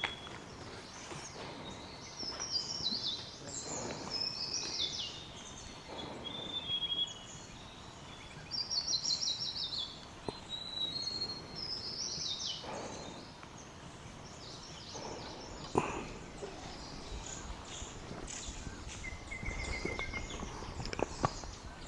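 Wild birds calling and singing: repeated bursts of high chirping phrases, several of them falling in pitch, and a short trill near the end. A sharp click is heard about three-quarters of the way through.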